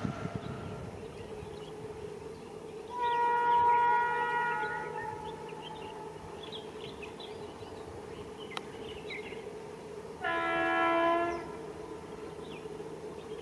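Locomotive horn sounded twice: a long blast about three seconds in that trails off, then a shorter, fuller blast with a lower tone a little after ten seconds. A steady mechanical hum runs underneath.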